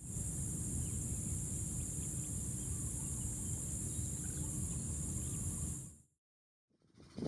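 Rice-field ambience: a steady high-pitched insect chorus over a low rumble, with a few faint bird chirps. It cuts off about six seconds in.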